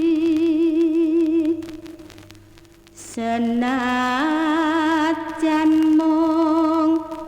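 A solo voice sings a slow Javanese song in long held notes with wide vibrato. The voice drops away about a second and a half in and returns near the three-second mark, stepping up in pitch before it holds again.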